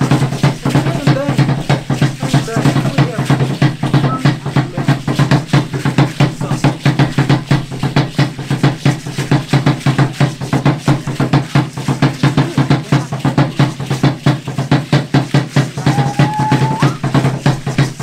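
Aztec dance drumming: a large drum beaten in a fast, steady rhythm that does not let up.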